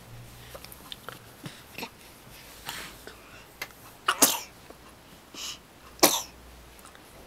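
A baby sneezing twice, short sharp sneezes about four and six seconds in, with a softer breathy sound between them and a few small clicks before.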